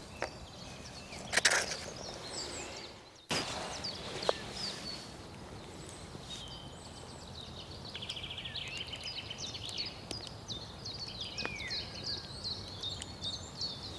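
Wild songbirds chirping and trilling, several calls overlapping, with a fast rattling trill about eight seconds in, over a steady outdoor background hiss. A few short knocks and clicks, the loudest about one and a half seconds in.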